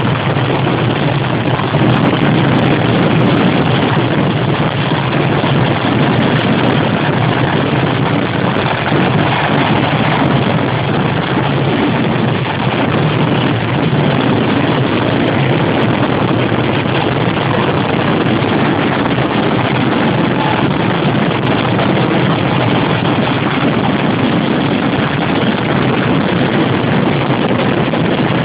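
Kerala temple fireworks (vedikettu) firing as a continuous ground-level barrage, the explosions coming so fast that they merge into one steady, loud noise with no gaps.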